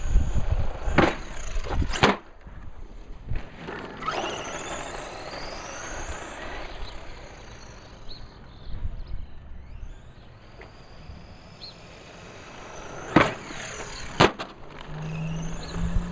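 Brushless electric RC truck being driven hard: the motor whine rises and falls as it accelerates, over rolling tire noise, with sharp knocks from the truck landing or hitting things about a second in, two seconds in, and twice more near the end.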